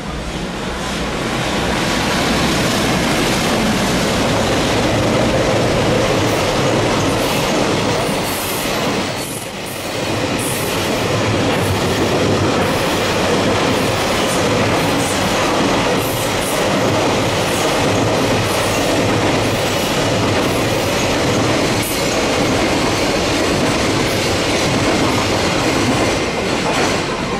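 Freight train passing close by: an EF210 electric locomotive followed by a long train of container and tank wagons. The sound swells over the first two seconds as the locomotive arrives, then holds as a steady rumble and clatter of wagon wheels on the rails.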